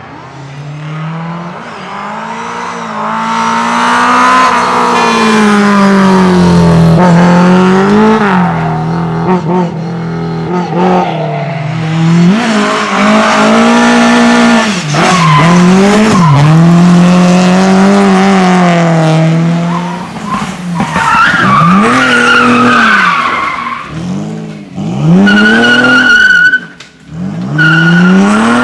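Rally car engine revving hard, its pitch climbing and falling again and again through gear changes and lifts as the car is driven flat out, with a short tyre squeal near the end.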